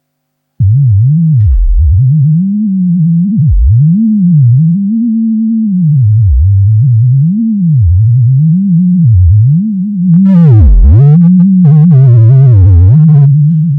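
Sonified EEG of a sleeping pigeon's brain: a loud, low electronic tone that starts abruptly and swoops up and down in pitch about once a second. From about ten seconds in, a buzzier stretch with many wobbling higher overtones lasts about three seconds.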